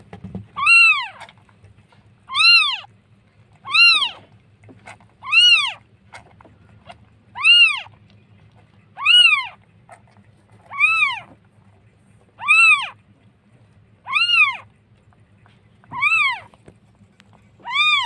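Newborn kitten crying: a high, thin mew repeated about eleven times, roughly once every second and a half to two seconds, each call rising and falling in pitch.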